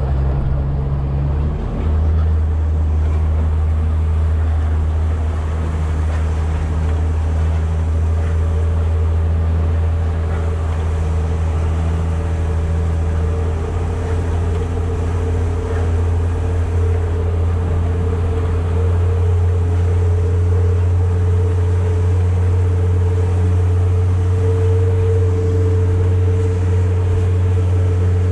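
Fishing boat's engine running steadily under way, over a constant hiss of water and wind. Its note steps up about two seconds in, then holds even.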